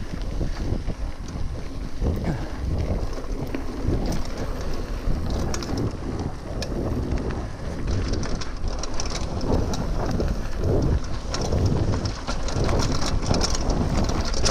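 Wind buffeting the microphone and mountain bike tyres rolling over a dirt trail on a descent, with quick clicks and rattles from the bike over rough ground that grow more frequent in the second half.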